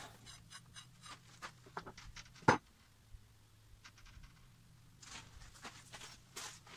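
A steel pipe is handled and laid down on a wooden workbench: scattered soft clicks and taps, with one sharp knock about two and a half seconds in. A faint steady low hum sits underneath.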